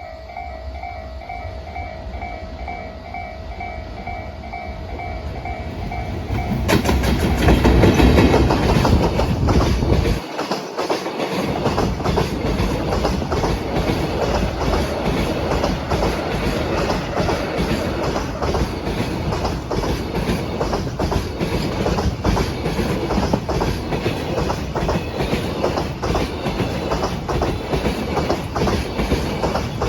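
A Japanese level-crossing bell rings in a steady repeating beat. At about seven seconds a JR Freight EF210-100 series electric locomotive passes close by, loud at first, and a long string of Koki container wagons follows with a continuous clickety-clack of wheels.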